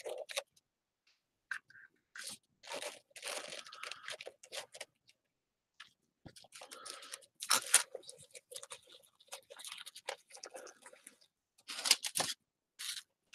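Paper roses rustling and crunching as hands handle and press them into place, in short irregular bursts with brief pauses.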